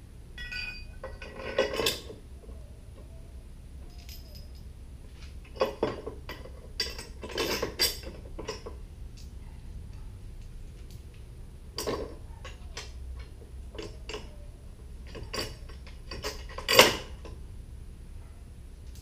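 Stainless steel bolts, washers and a metal mounting bracket clinking and clattering as they are handled and fitted, in scattered bursts, the loudest near the end.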